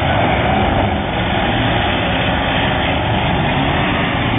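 Demolition derby cars' engines running together, a loud, steady mix of engine noise.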